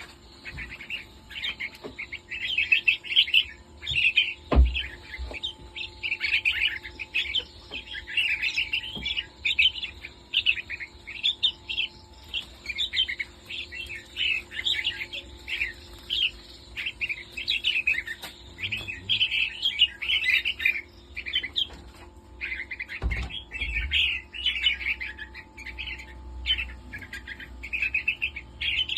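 Several caged red-whiskered bulbuls chirping constantly, their short calls overlapping. A couple of low thumps come about four seconds in and again near the end.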